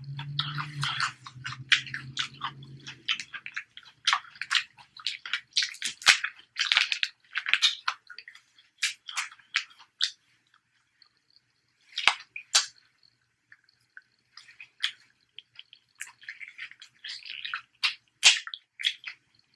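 Close-miked chewing: wet, crunchy bites and mouth sounds coming in quick, irregular bursts, with brief pauses between mouthfuls.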